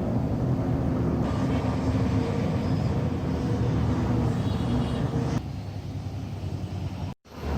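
An electric fan or blower motor running steadily with a whooshing hum. A few seconds in, the higher part of the sound drops away, and near the end it cuts out for an instant.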